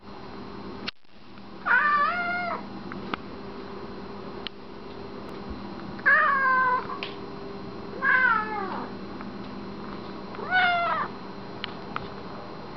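Exotic shorthair cat meowing four times, each meow under a second long and dropping in pitch at its end.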